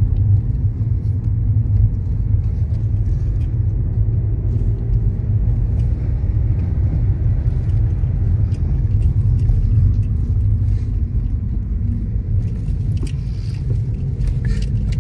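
Steady low rumble of a car being driven, heard from inside the cabin: road noise with a faint engine hum underneath.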